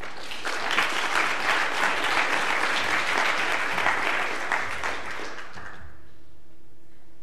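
Audience applauding. The clapping starts within the first second, stays dense for several seconds and dies away about six seconds in.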